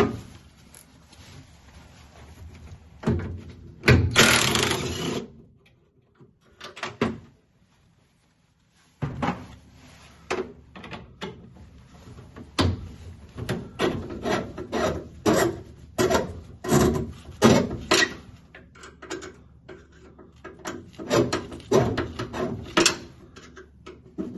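Hand-work noises on a car door's vent window and window hardware: a sharp knock, a short scraping rasp, then a long run of irregular metal clicks, knocks and rubbing as parts and tools are worked and bolts are turned.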